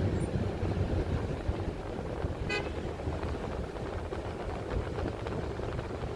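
Steady low rumble of road traffic, with one short car horn toot about two and a half seconds in.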